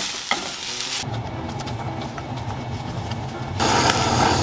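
Sausages sizzling in a frying pan, with a light clack of chopsticks. About three and a half seconds in, a handheld butane blowtorch comes on and hisses steadily and louder as it sears them.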